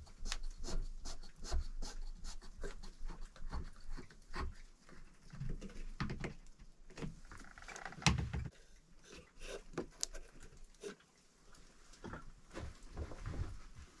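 Hand-tool work on a wooden window frame: a run of small clicks, scrapes and light knocks, with one louder knock about eight seconds in.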